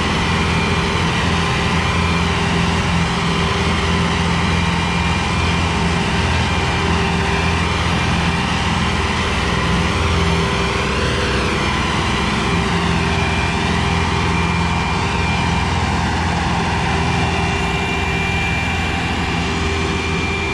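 Sonalika DI-750 III tractor's diesel engine running steadily under load, pulling a trolley heaped with sand, a low even drone with a thin steady high whine above it.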